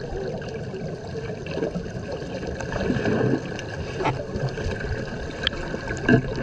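Muffled water sloshing and gurgling heard from a camera held underwater, with scattered small clicks and splashes from swimmers kicking at the surface.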